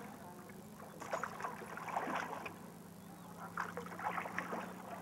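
Water splashing and lapping against a small rowboat as it is rowed, in a few irregular bursts about a second in, around two seconds and again near the end, over a steady low hum.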